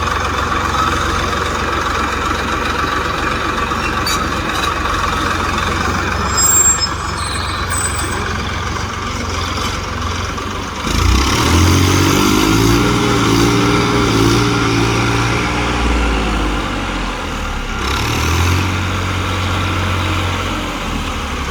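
TAFE tractor's diesel engine running a backhoe loader: a steady low rumble that grows louder about halfway through, when a pitched engine drone comes up and holds for several seconds. A few brief high squeaks come about six to eight seconds in.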